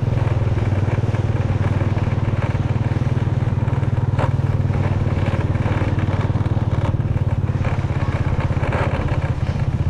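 Motorcycle engine running steadily while being ridden, heard from on the bike, with a fast, even firing pulse. A single sharp click comes about four seconds in.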